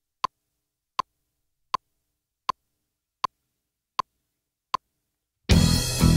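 Electronic metronome click counting in: single sharp clicks at an even pace, about 80 beats a minute, with silence between. About five and a half seconds in, a rock backing track with electric guitar comes in.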